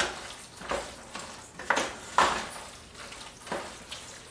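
Wooden spoon stirring in a pot on the stove, knocking and scraping against its sides about seven times over a faint hiss.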